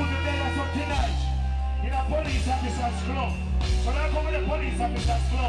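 Live reggae band with a deep bass line in long held notes and a man singing over it.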